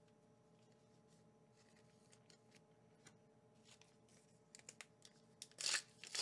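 Pokémon promo card packs and cards being handled: soft rustles and clicks of the plastic wrapper and card stock, sparse at first and then louder and more frequent in the last couple of seconds, over a faint steady hum.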